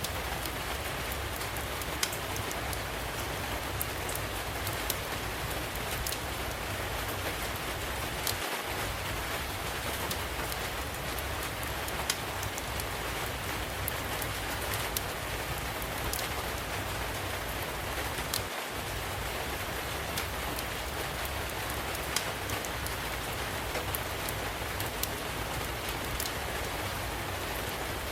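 Steady rain falling, with scattered sharp crackles and pops from a wood fire in a fireplace.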